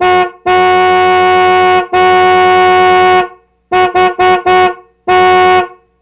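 Car horn honking on one steady note: a brief honk, two long honks of over a second each, three quick short toots, then one more honk.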